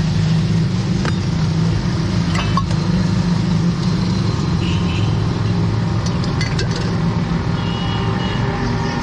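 Steady low rumble of road traffic, with a few sharp clicks and knocks and two short high tones partway through.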